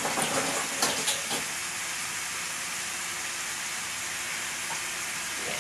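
Ground beef sizzling in a frying pan: a steady frying hiss, with a few light clicks in the first second and a half.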